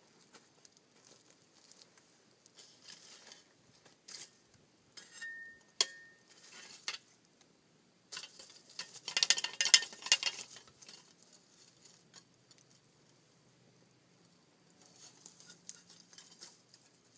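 Things being handled: scattered rustling and light clicks and clinks, with a louder stretch of crinkling about eight to eleven seconds in.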